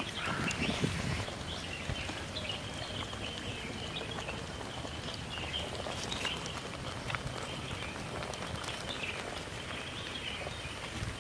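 Steady outdoor background with birds chirping on and off and scattered small clicks.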